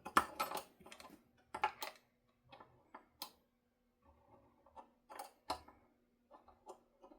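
Scattered light clicks and taps of small guitar parts and hardware being handled while fitting them to the body, irregular and a few close together, over a faint steady hum.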